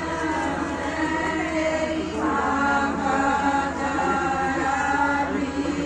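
A group of voices singing together in a chant-like song, several voices holding pitches at once, over a steady low hum.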